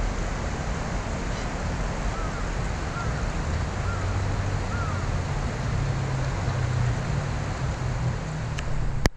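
Steady outdoor rush with wind buffeting the microphone over a low rumble. A few faint high chirps come about two to five seconds in, and a sharp click sounds just before the end.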